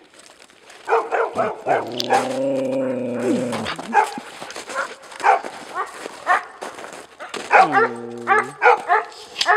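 Dogs barking repeatedly, with a long drawn-out call lasting about two seconds early in the stretch and a shorter rising-and-falling call near the end.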